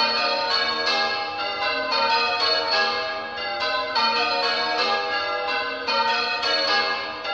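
Church tower bells being rung in changes: a continuous, evenly paced sequence of bell strokes, each tone ringing on into the next.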